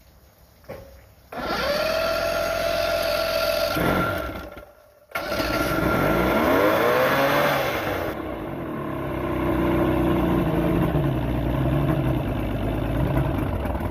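Mercury 1500 inline-six two-stroke outboard being cranked over for a test start after a new distributor and trigger were fitted, in a few separate tries with sharp cuts between them. One try has a steady whine that rises as it spins up; another rises and falls in pitch.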